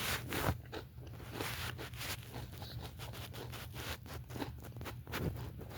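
Close-up chewing of a bacon, egg and cheese sandwich: a quick, irregular run of small crunches and wet mouth sounds.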